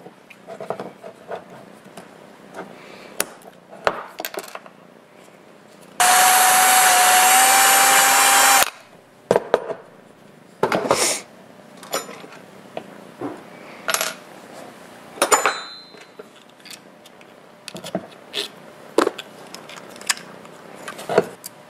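A small handheld power tool runs for nearly three seconds, starting about six seconds in, with a steady whine, cutting off a block on a 3D-printed plastic extruder part. Scattered clicks and knocks of small parts being handled come before and after.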